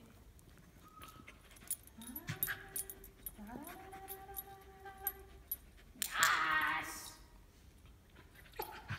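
Dog whining in long calls that rise and then hold steady, with a louder, harsher whine about six seconds in.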